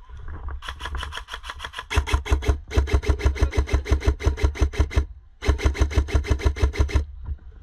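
Upgraded Specna Arms electric airsoft rifle firing long full-auto bursts: a rapid, even rattle of shots from the gearbox cycling. The fire gets louder about two seconds in, and there is a short pause about five seconds in.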